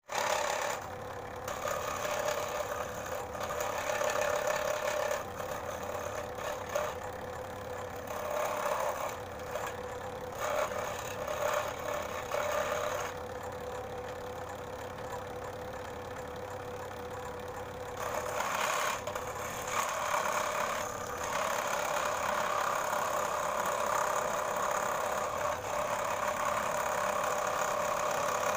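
Modern M-400A electric scroll saw running, with a steady motor hum and a clattering blade noise that swells and eases in stretches.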